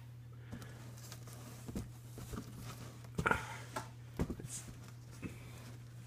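Handling noise: a few soft knocks and rustles, the loudest about a third and two-thirds of the way through, over a low steady hum.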